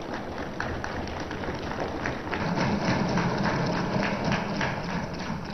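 Many legislators thumping their wooden desks in approval: a dense, irregular patter of thuds that swells about halfway through.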